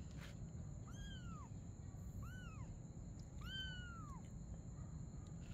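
Young kitten meowing three times: thin, high-pitched mews that each rise and then fall in pitch, a little over a second apart.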